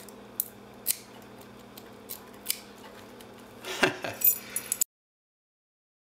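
Thin metal tool scraping and clicking inside the keyway of a Yale shutter padlock as the keyway is cleaned out: a few sharp metallic clicks spaced apart, then a quick flurry of clicks near the end, after which the sound cuts off abruptly.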